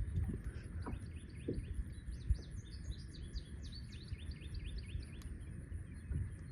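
A songbird singing a rapid series of short, downward-sliding notes for a few seconds, over a low outdoor rumble with a few soft knocks.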